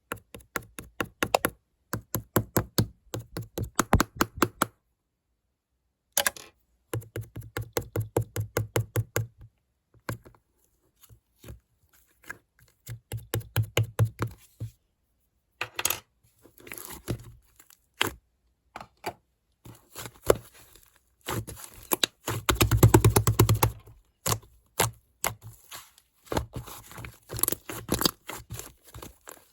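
Clay slime being squeezed and pressed by hand, giving quick runs of small clicking and popping sounds in bursts with short pauses between, loudest and densest a little past the three-quarter mark.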